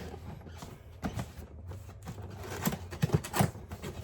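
Cardboard box and packaging being handled during an unboxing: rustling with scattered knocks, the loudest a quick cluster of knocks about three seconds in.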